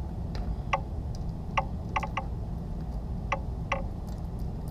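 Light metallic clicks and ticks, about seven at uneven intervals, as the hold-down clamp hardware is fitted and snugged to fix a 6-inch rotary table to a milling machine's table.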